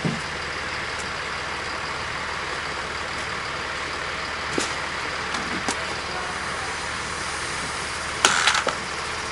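A garbage truck's diesel engine running as a steady drone, with a few faint ticks and a short, louder clatter about eight seconds in.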